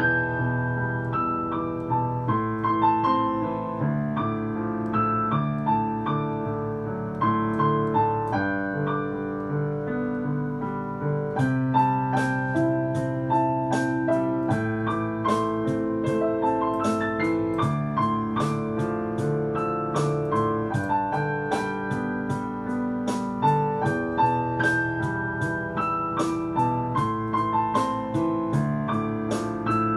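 Yamaha digital piano playing a slow Taiwanese Hokkien pop ballad, a melody over a bass line and chords. From about a third of the way in, sharp high ticks come in on a steady beat under the notes.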